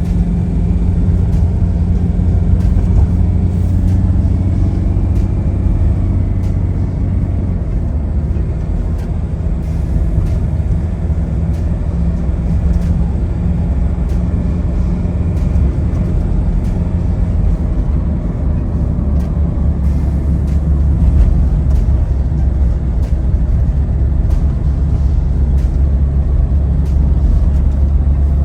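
A car driving: the engine runs with a steady low hum and road noise, and its pitch drops a little about eight seconds in.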